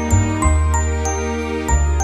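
Background music: a tune of ringing, chiming notes over held bass notes.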